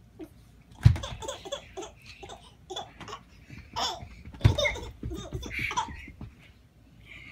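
A baby laughing in bursts, with two loud thuds, about a second in and again about halfway through, as a standing Yoda toy figure is knocked over.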